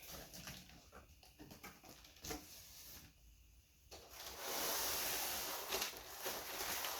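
Packaging being handled: a few light knocks and taps, then louder, steadier rustling and crinkling from about four seconds in.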